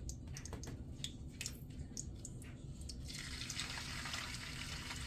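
Hot beef tallow in a cast-iron skillet giving scattered small pops and crackles, then, about three seconds in, a steady sizzle starts as a bacon-wrapped ribeye finger is laid into the oil and begins to fry.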